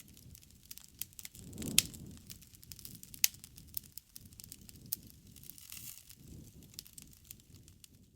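Wood campfire crackling: irregular sharp pops and snaps over a low rush of burning flames, with the loudest snap just under two seconds in.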